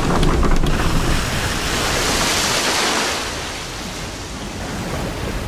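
Ocean waves washing, with a hissing surge that swells and fades about two to three seconds in, then a softer wash. Fire crackles from the burning wreckage in the first second.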